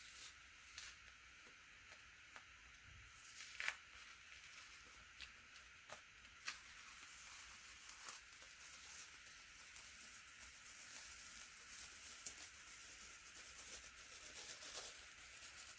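Green painter's tape being peeled slowly off a leather jacket: faint crackling tearing with scattered sharp ticks, the loudest about four seconds in and denser crackle in the second half.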